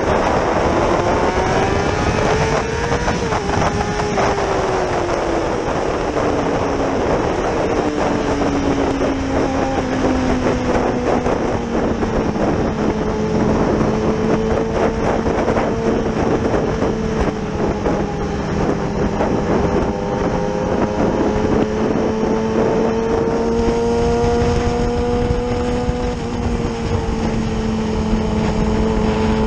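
Yamaha R6 sport bike's inline-four engine heard from on board while riding, with wind rushing past. Its revs climb over the first few seconds, ease back down, then hold a fairly steady note at cruising speed.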